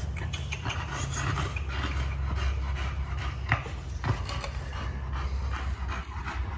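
A dog in labour panting over a steady low hum.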